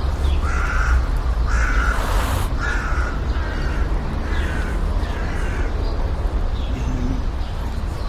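A run of short, harsh animal calls, repeated a little less than once a second, over a steady low rumble.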